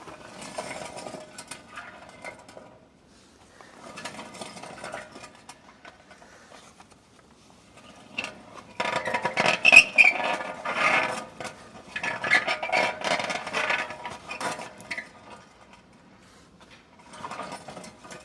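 A Ford truck wheel hub spun by hand, its wheel bearing grinding and scraping as the hub turns, in five separate spins that are loudest in the middle. The sound is that of a bad wheel bearing, not dragging brakes, even though the bearings were freshly greased.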